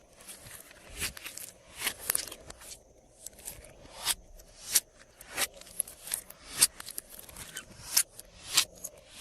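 Glossy slime being worked by hand, giving a run of sharp wet pops and crackles, about one every two-thirds of a second, as air pockets are pressed and snapped in the slime.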